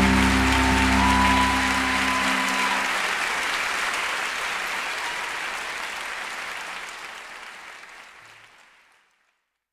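The final held chord of a live song rings out, then audience applause, which fades out steadily to silence near the end.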